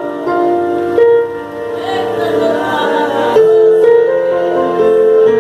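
Instrumental worship music: sustained chords that change about once a second, leading into a congregational song.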